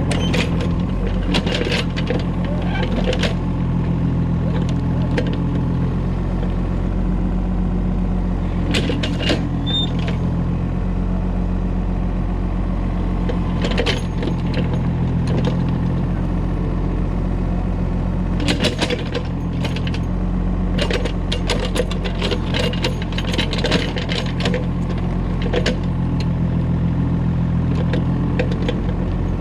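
Kobelco excavator's diesel engine running steadily, with repeated bursts of clanking and rattling as it digs and loads soil.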